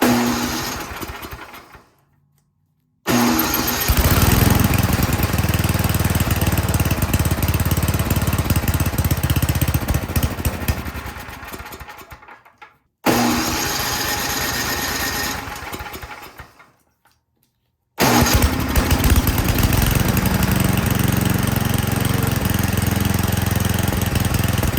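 Toro Power Shift 824 snowblower's small gas engine running steadily on choke at fast throttle, now that its dirty carburetor has been cleaned. The running sound is broken by sudden silent gaps into several stretches.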